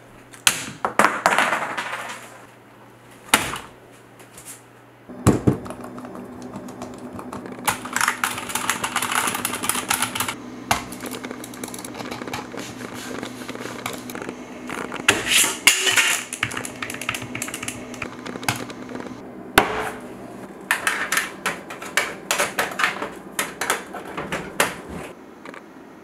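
Typing on a computer keyboard, in several bursts of rapid key clicks with single sharp clicks between them. A steady low hum runs under the middle part.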